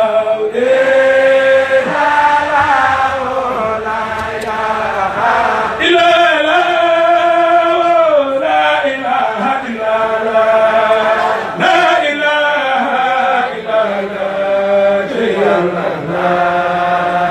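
A man chanting an Arabic devotional poem (qasida) through a microphone, in long drawn-out notes that glide up and down in pitch, with short pauses for breath between phrases.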